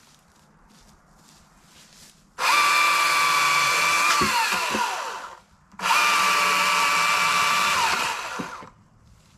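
EGO CS2005 20-inch battery chainsaw set on high speed, run twice for about three seconds each with a steady high whine. Each time it is released its pitch falls away as the chain winds down.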